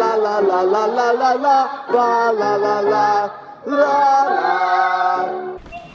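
Several voices singing a cappella through a vocal warm-up, the pitch sliding and stepping up and down, with a short break a little past halfway. The singing stops shortly before the end.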